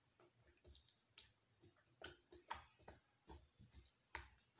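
Homemade glue slime being kneaded by hand on a table: faint, irregular sticky clicks and soft snaps, a few a second, one louder snap about four seconds in.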